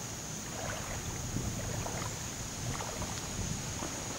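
Feet wading through shallow floodwater, with soft irregular sloshing and splashing.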